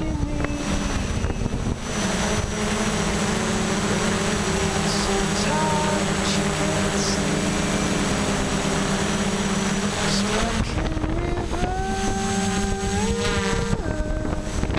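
Electric motors and propellers of a multirotor drone, heard from the camera mounted on it: a steady whine of several tones over wind rush. About ten seconds in, the tones shift and climb in steps as the throttle changes.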